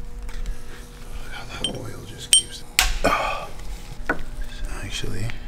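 Sharp metallic clinks and knocks of steel timing parts and hand tools being handled on an open cylinder head. A short ringing clink comes a little past two seconds in, and the loudest clank follows about half a second later.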